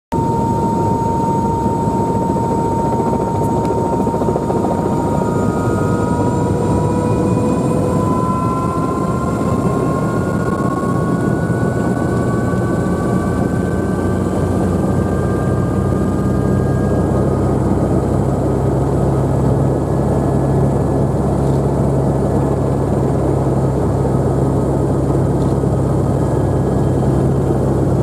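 Sightseeing helicopter running up close, its rotor and engine giving a loud, steady noise. An engine whine rises in pitch over the first half, and a low rotor hum grows stronger past the middle.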